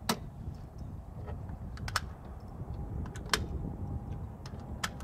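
Suppressed AR-15 in .300 Blackout firing subsonic rounds through its AAC Titan suppressor: sharp, short reports about every one and a half to two seconds, with a smaller click near the end. Wind buffets the microphone with a steady low rumble throughout.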